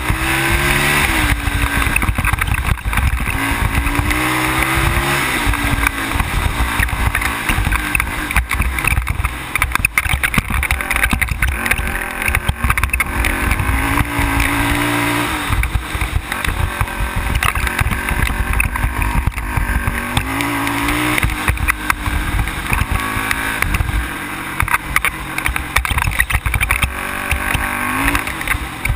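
ATV engine running under way, its pitch climbing and dropping again several times as the throttle opens and eases, over a heavy low rumble from the ride.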